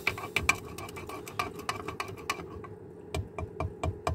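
A teaspoon stirring sugar and milk into a cup of coffee, with quick clinks against the side of the cup at about six a second. The clinks thin out and come further apart in the second half.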